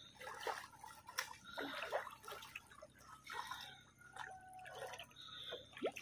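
Light, irregular splashing and dripping of water in a shallow muddy creek, a series of small splashes and drops.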